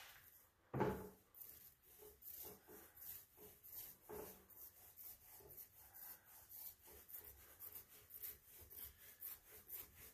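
Small foam paint roller rolled quickly back and forth over a wooden board, spreading enamel paint: faint rubbing swishes, about three strokes a second. There is a single knock about a second in.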